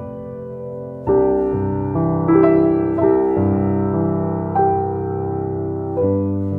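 Background piano music, slow held chords with a new note or chord struck about once a second.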